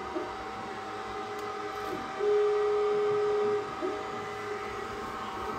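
xTool D1 diode laser engraver's gantry stepper motors whining as the laser head moves around the framing outline. The whine comes in short moves, the longest and loudest starting about two seconds in and lasting about a second and a half, over a steady hum.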